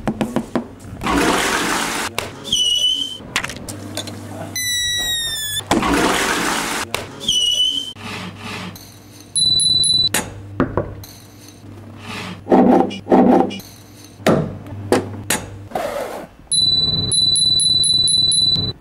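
A rubber balloon rubbed by fingers, squeaking and rushing, with the same pattern heard twice in the first half. Then a bicycle handlebar bell: one bright ring about halfway through, a few knocks, and rapid repeated dinging near the end.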